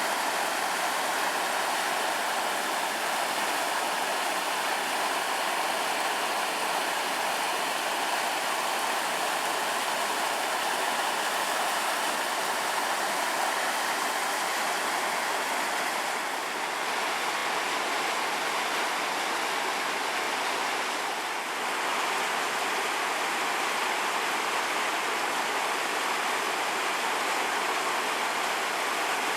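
Cache La Poudre River floodwater flowing steadily over a road, making a continuous rushing noise.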